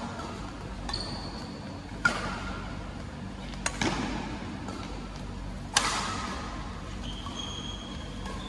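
Badminton rally: rackets hit the shuttlecock three times, sharp pops about two seconds apart. Short squeaks of shoes on the court floor come near the start and again near the end.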